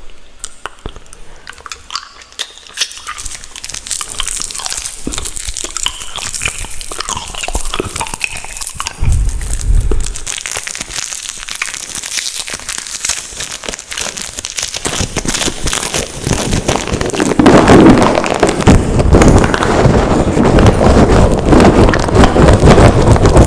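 Close-miked ASMR sounds: a run of soft clicks and crackles, building about fifteen seconds in into a loud, dense crinkling and scratching right at the microphone.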